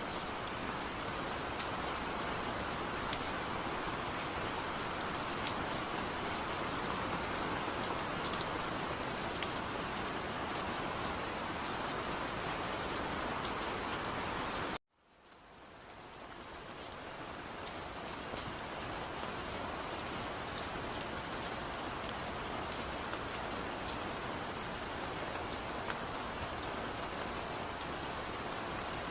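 Steady rain falling, with individual drops ticking through the hiss. About halfway through it cuts out abruptly, then fades back in over a few seconds.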